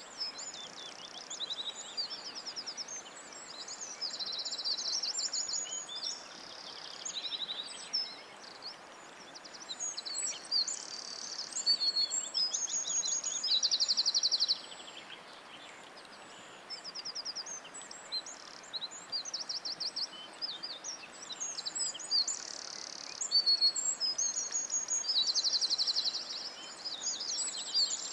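Songbirds singing: many high, quick chirps and fast trills overlapping one another, over a faint steady hiss.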